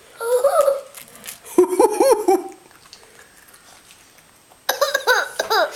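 A young child giggling in three short bursts of quick, high 'ha-ha' notes: one at the start, one about two seconds in and one near the end.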